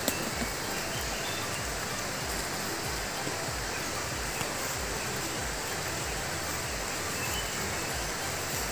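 River water rushing steadily: an even, unbroken wash of flowing water.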